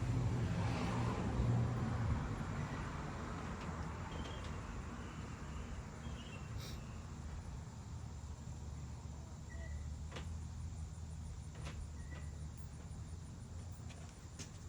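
Quiet outdoor background: a low rumble that fades over the first few seconds, a few light clicks, and a few short faint chirps.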